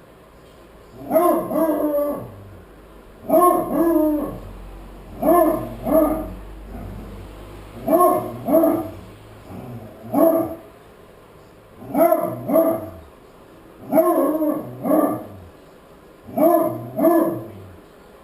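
A dog barking in quick pairs, "woof-woof", about every two seconds: alarm barking at the mail carrier arriving.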